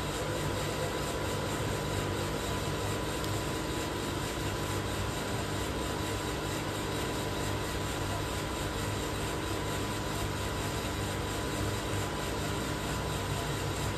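Probat Probatone P12 Series 2 12 kg drum coffee roaster running, a steady machine hum that does not change.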